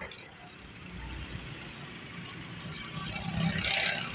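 KAI diesel-electric locomotive approaching at the head of a passenger train, its engine rumble growing louder, with a louder rush of noise about three seconds in.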